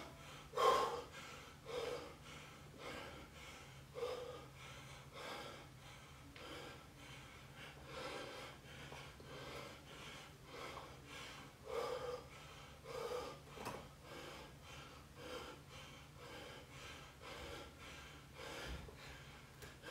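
A man breathing hard in short puffs, roughly one a second, in time with his air squats.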